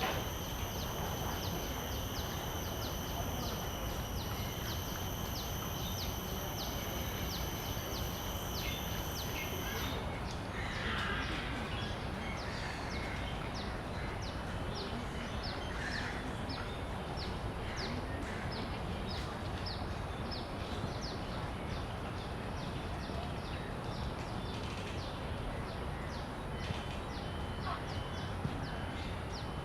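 Cicadas singing: one cicada holds a steady, high-pitched buzzing whine that stops about a third of the way in, while other cicadas keep up a regular pulsing call of about two pulses a second throughout, over a low background rumble.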